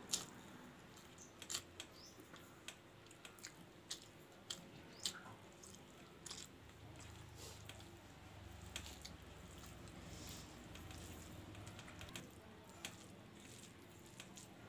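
Faint eating sounds: scattered soft clicks and squelches as fingers mix rice and curry on a steel plate, with chewing.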